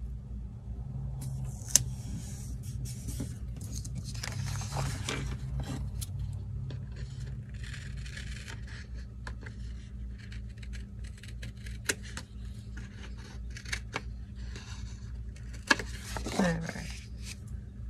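Paper and sticker handling on a desk: rustling and scraping of a planner page, with a few sharp clicks and snips as overhanging sticker scraps are trimmed off. A short falling squeak near the end.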